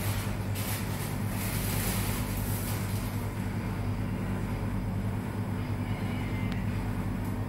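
A steady low hum over a constant background rumble, with a few short hissy rustles in the first few seconds.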